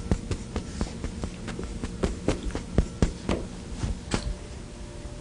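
Writing on a board, heard as a run of irregular light taps and clicks, about three a second, over a faint steady room hum.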